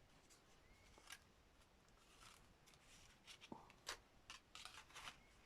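Near silence with faint scattered clicks and short rustles of hands handling paper and craft supplies on a table, coming more often in the second half.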